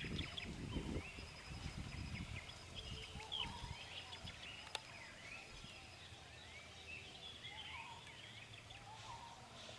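Several wild birds chirping and calling over one another in short, quick, rising and falling notes, with a thin high note repeated in quick succession. A low rumbling noise sits under the first few seconds, and there is a single sharp click near the middle.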